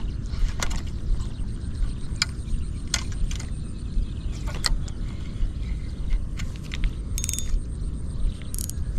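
Fishing reel clicking: scattered sharp clicks, then a short run of rapid ratcheting clicks near the end, over a steady low rumble.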